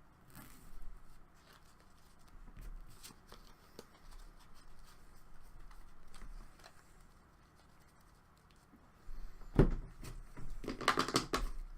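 Hockey trading cards and their packaging being handled: soft shuffling and rustling with scattered light clicks, then a sudden thump about two-thirds of the way in and a quick run of sharp rustles and clicks near the end.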